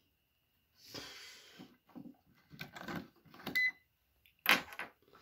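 Handling noise from a digital clamp meter and its leads: rustling and a few scrapes and knocks as the plug-in temperature probe is pulled out and the test leads are handled, ending in one sharp click about four and a half seconds in.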